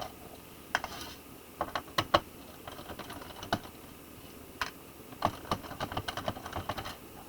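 Irregular small clicks and taps of a screwdriver working screws out of a laptop's plastic bottom case.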